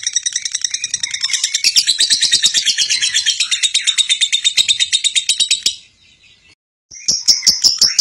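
Lovebird singing a long, fast chattering trill of high, sharp notes at about ten a second: the nonstop 'konslet' chatter that keepers prize in a bird in full song. It breaks off suddenly for about a second near the end, then starts again.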